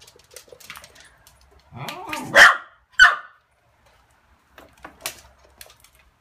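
A small dog barks at an electric fan it is afraid of: a drawn-out bark about two seconds in, then a short sharp one a moment later. A few faint ticks follow.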